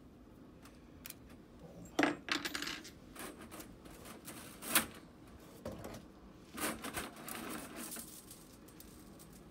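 Coiled steel drain-snake cable clinking and rattling as it is handled and coiled, in several bursts, the sharpest a single clink about halfway through.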